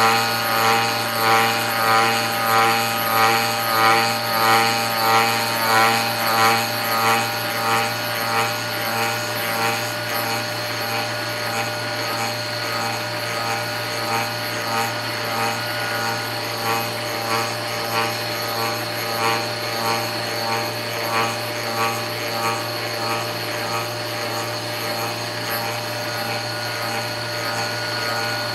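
Stepper-motor-driven rose engine lathe cutting a workpiece: a steady motor whine and hum with a rhythmic pulse about every two-thirds of a second. The pulses are strong at first and fade after about eight seconds.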